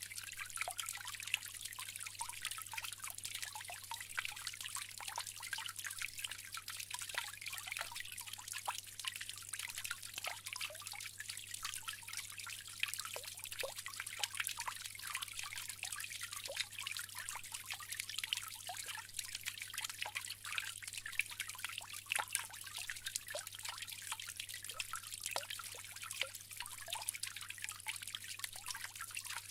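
Bamboo water fountain: water trickling and splashing in many small drips, steady and continuous.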